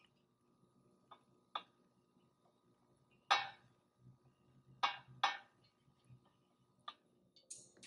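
Silicone pastry brush knocking and clicking against a metal donut pan as its cups are greased, about six light knocks with the loudest a little before the middle.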